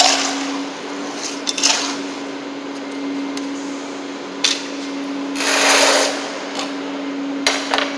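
Metal scoop scraping through wet concrete in a wheelbarrow as it is mixed, followed by short knocks and a longer, louder scrape a little past halfway as equipment is handled. A steady low hum runs underneath.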